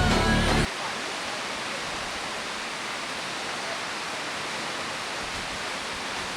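Background music cuts off under a second in, leaving the steady, even rush of a waterfall's falling water.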